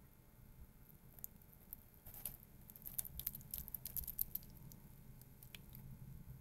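Curdled soy milk sliding out of a glass bowl into a paper-towel-lined mesh strainer: faint wet squishing and patter, with a run of small crackling ticks from about two seconds in.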